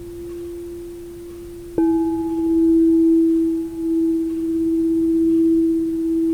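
Singing bowl ringing: an earlier strike's tone is still sounding when the bowl is struck again about two seconds in. It rings on with a slow wavering pulse, its higher overtones dying away first.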